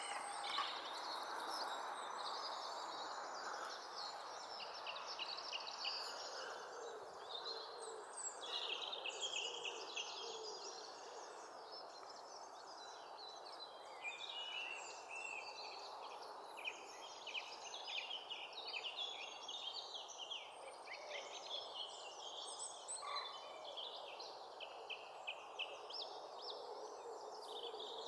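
Small wild birds singing and calling, many short high chirping phrases one after another, over a steady background hiss of ambient noise.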